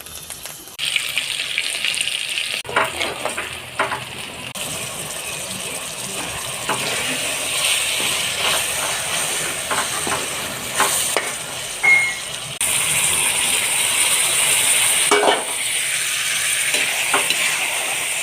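Food sizzling in hot oil in a frying pan, stirred with a spatula that scrapes and knocks against the pan now and then. The sizzle steps louder a few times.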